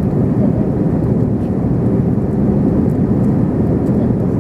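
Airbus A321ceo cabin noise heard from a window seat in the climb after take-off: a steady, low roar of jet engines and airflow, with no changes.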